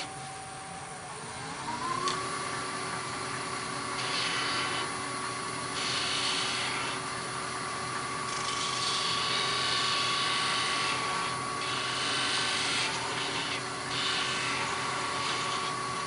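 Wood lathe motor running steadily, its hum rising in pitch about a second and a half in as the speed comes up, while a gouge cuts a wooden knob on and off in several hissing scrapes.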